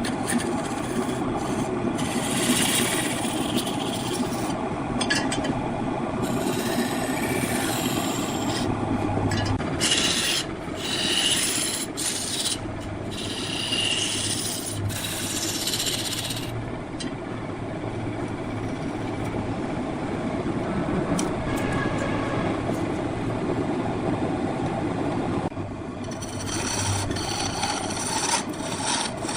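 Turning tool cutting wood spinning on a lathe: a continuous rasping scrape that grows brighter and hissier in stretches as the cut bites harder.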